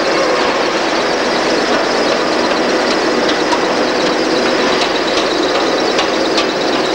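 Factory machinery running steadily, a continuous mechanical noise with a light rattling clatter and faint ticks, while a stacked pack of aerated-concrete blocks is carried through the plant.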